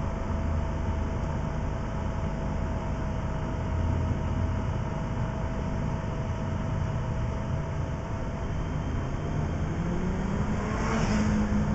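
Motorcycle engine running under way with steady wind noise on the microphone; near the end the engine note rises as the bike accelerates.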